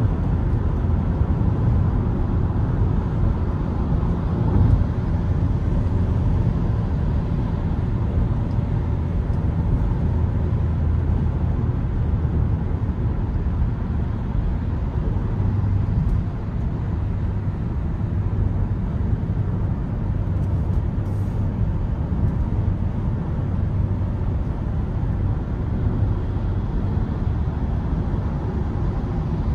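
Inside the cabin of a 2023 Mitsubishi Xpander cruising on a highway: steady, mostly low-pitched tyre and road noise with the four-cylinder engine running underneath.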